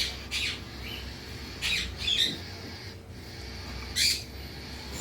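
Tame pet parrot giving a series of short, harsh squawks, about five in all, the loudest about four seconds in.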